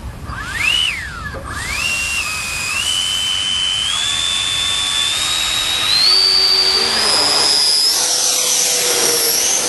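Taiwan Tornado 120mm electric ducted fans (950KV motors on 12S) of a Skymaster A-10 model jet whining. There is a quick throttle blip up and back down about a second in, then the pitch climbs in steps as the throttle is advanced and the model begins its takeoff roll.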